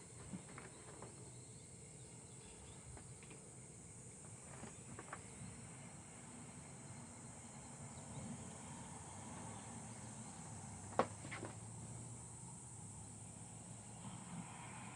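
Quiet room tone with a steady high hiss, broken by a few light clicks and taps; the sharpest click comes about eleven seconds in.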